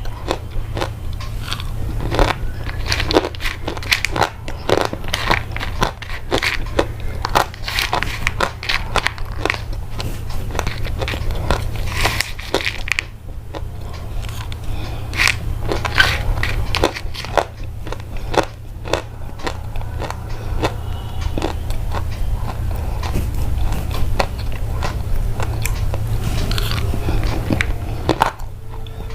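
Close-up crunchy chewing: irregular crisp crunches and crackles several times a second, over a steady low hum.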